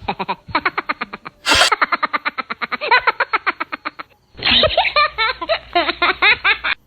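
Cartoon-style laughter sound effect: rapid giggling pulses, several a second, in two runs with a short break about four seconds in.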